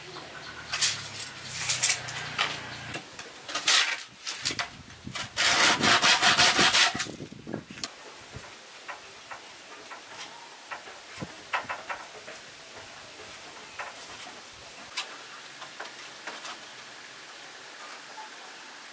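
Hand work on wood: scraping strokes, then a loud run of rapid rasping strokes about halfway through, like sawing. After that only scattered light knocks and clicks.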